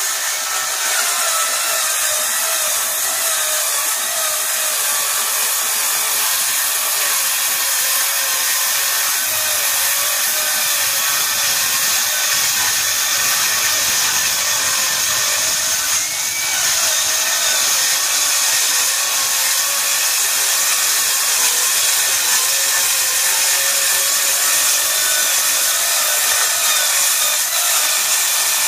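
Circular saw with a carbide-tipped blade cutting through sheet aluminum diamond plate, running steadily under load without a break. The sound is loud and harsh, with most of it high-pitched.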